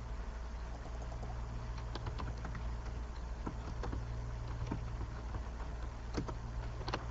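Computer keyboard typing: irregular clicks of keys, a few louder strokes near the end, over a steady low electrical hum.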